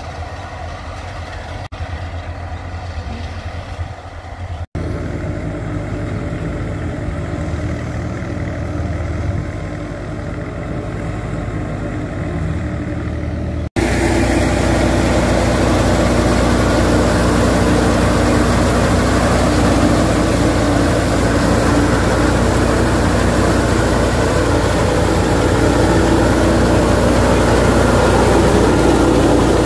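Tractor engine running steadily, driving a wheat thresher. The sound changes abruptly at a few cuts, and from about halfway through it is louder and fuller.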